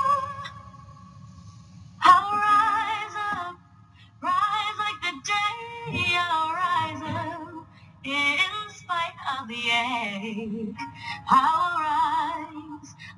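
A woman singing a slow pop ballad over soft accompaniment, with held notes and vibrato. The voice drops out just after the start and comes back in about two seconds in.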